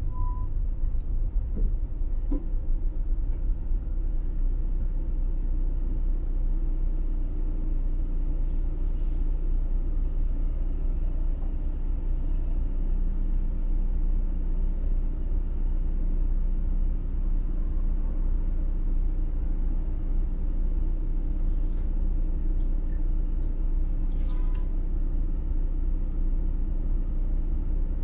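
Car driving, a steady low rumble of engine and road noise. A short high beep sounds just after the start and again about 24 seconds in.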